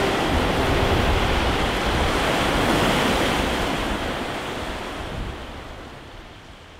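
Caribbean sea surf washing on a beach, a steady rushing noise that fades away over the last few seconds.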